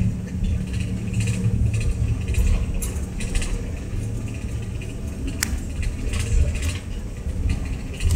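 Cabin noise of a Bombardier CRJ900 regional jet taxiing: a steady engine hum and rumble from the airframe and wheels, with light rattles and a sharp click about five seconds in.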